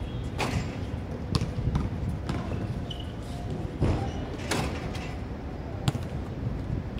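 Basketball pickup game: irregular thuds of the ball bouncing and striking, with a brief sneaker squeak about three seconds in, over a steady low wind rumble on the microphone.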